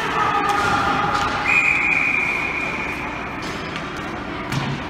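A referee's whistle blown once and held for about a second and a half, a steady high tone.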